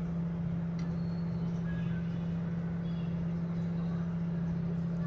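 A steady low hum in the background, with a faint click about a second in.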